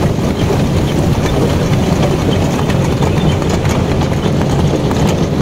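Horse-drawn cart running over wet sand: a steady rumbling rattle of the cart, with horses' hoofbeats mixed in.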